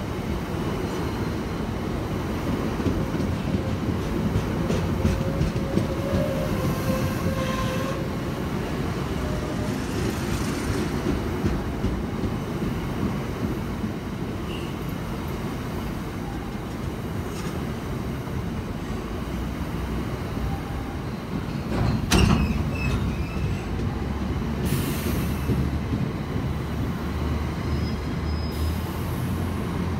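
Freight train of covered bogie hopper wagons rolling past: a steady rumble of wheels on rail, with faint wheel squeal in places and one sharp clank about 22 seconds in.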